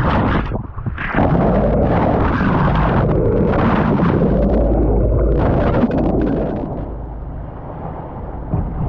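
Loud, rough rush of water churning and bubbling over a camera held underwater at a moving sailboat's bow. It eases off and softens for the last couple of seconds.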